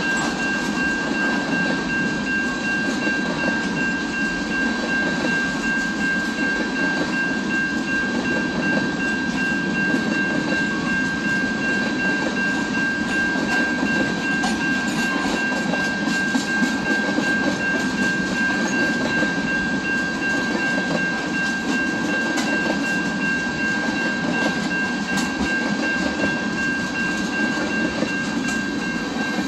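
A train running past steadily, a continuous rumble of wheels on rail with a steady high-pitched whine held over it.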